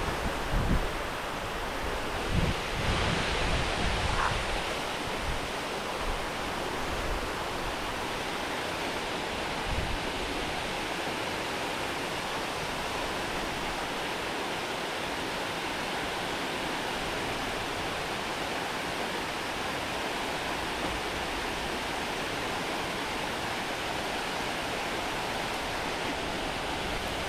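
Steady rushing of river water, an even hiss with no changes, with a few low bumps of wind or handling on the microphone in the first few seconds.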